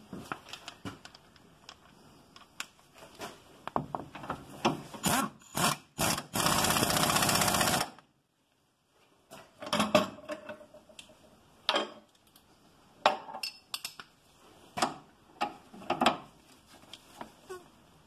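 Hand tools clinking and knocking on metal while nuts on the front suspension are fastened, with a loud, even burst of a tool running for about a second and a half about six seconds in.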